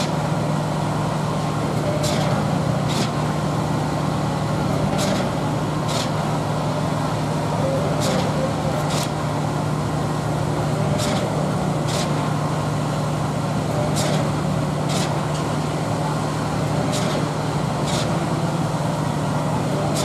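Truck-mounted concrete boom pump running steadily with a low engine drone. Over it come short, sharp clacks in pairs about a second apart, with the pairs repeating every three seconds as the pump cycles while pumping concrete.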